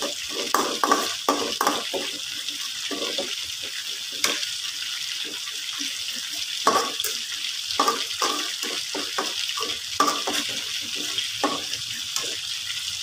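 Blended green chili paste sizzling in oil in an aluminium wok, with a metal spatula stirring and scraping against the pan in irregular strokes and one sharper knock about four seconds in.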